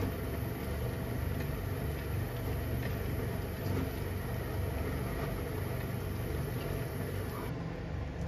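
A steady low hum, with a faint high hiss that cuts off near the end and a few faint ticks.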